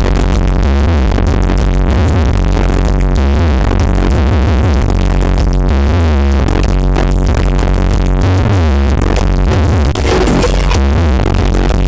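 Loud electronic dance music with a drum-machine beat and heavy bass, played through a large 'sound horeg' carnival sound system.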